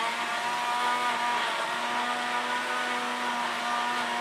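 Electric mixer grinder running at full speed, a steady motor whine over a churning hiss, as it grinds chopped ginger with a little water into a paste.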